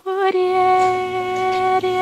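Amazigh woman singing timnadin, solo voice, holding one long steady note.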